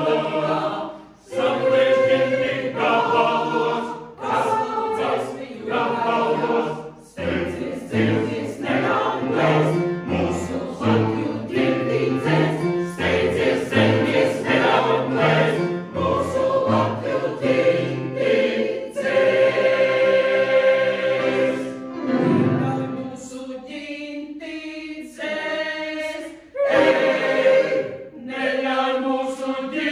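Mixed choir of women's and men's voices singing in parts, phrase after phrase, with short breaks for breath between them.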